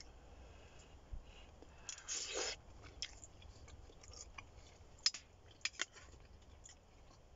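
Quiet sounds of a man eating boiled dumplings: chewing, a brief louder rush about two seconds in, and a few sharp clicks later on.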